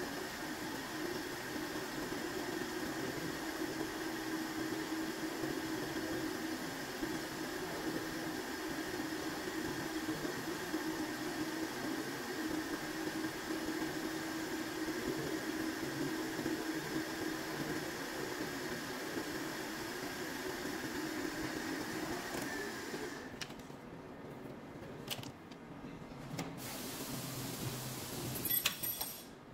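Milling machine spindle running steadily as an end mill cuts into an aluminium block, with a steady motor hum. The machine stops about three-quarters of the way through, followed by a few light clicks.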